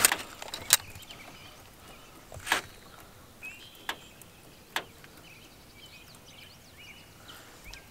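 Handling noise: about five scattered sharp clicks and knocks over the first five seconds as a bass is clipped onto a handheld fish scale and lifted in a small boat, with faint bird chirps behind.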